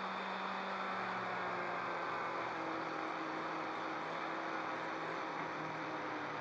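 Electric power tool running steadily with an abrasive hiss over a motor hum, the hum sinking slightly in pitch during the second half.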